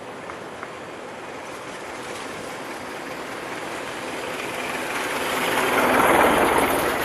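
Vintage car driving past: engine and road noise swell to a peak about six seconds in, then begin to fade.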